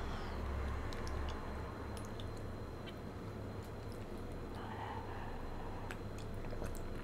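Close-miked wet mouth sounds of chewed marshmallow being worked on the tongue: scattered small saliva clicks and soft squishes over a steady low hum.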